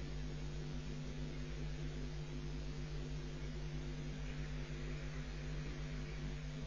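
Steady electrical hum and hiss, unchanging throughout, with no calls or bill-clattering standing out.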